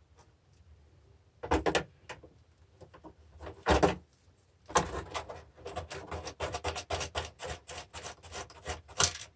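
Hand tools undoing small nuts on a car battery charger: a few separate knocks and clatters, then from about halfway a quick, steady run of clicks.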